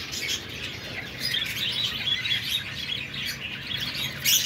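Caged budgerigars chirping and chattering continuously, many short overlapping chirps, with one louder sharper call near the end.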